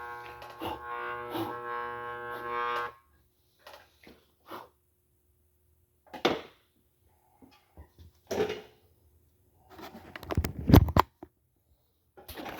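Music holding a steady chord that cuts off abruptly about three seconds in, followed by scattered short knocks and clunks, the loudest a heavy low thud near the end.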